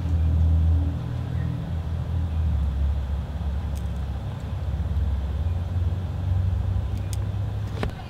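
Low, steady engine rumble of a running vehicle, wavering slightly in pitch, with a few light clicks from small parts being handled.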